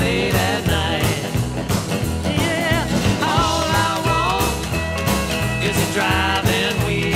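Background music: a country-rock song with a steady beat and a lead melody line that bends up and down, in an instrumental stretch without words.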